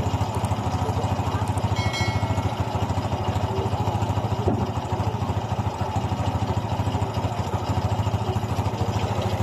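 Honda XRM 125 single-cylinder four-stroke engine idling steadily after a rebore and new piston. The earlier marble-like piston-slap rattle is gone.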